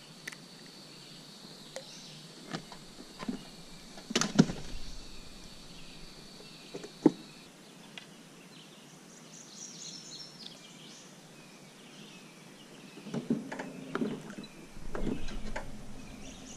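Scattered knocks and clunks of fishing gear being handled in a small boat, the loudest about four seconds in and another about seven seconds in, with a busier spell of clattering near the end. A steady high insect drone runs under the first half.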